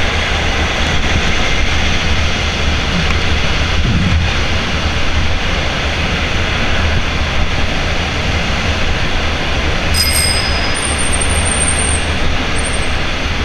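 Steady rushing roar of riding wind and road-tunnel traffic noise heard from a moving bicycle. About ten seconds in, a bicycle bell is rung, and its high ring lingers for a couple of seconds.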